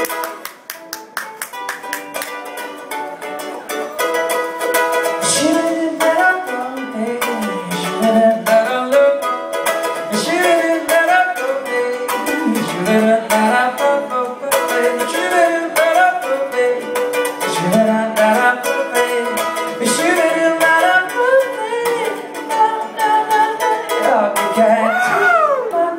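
Solo ukulele played live, a fast run of plucked notes, with a man singing over it into the microphone from about five seconds in. Near the end the voice makes a high rising-and-falling glide.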